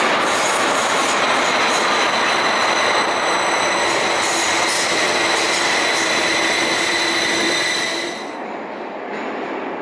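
Light-rail car running through an underground tunnel into a station, heard from inside the car: a loud steady rumble with a high-pitched squeal held over it. About eight seconds in, the sound drops to a quieter, duller rumble.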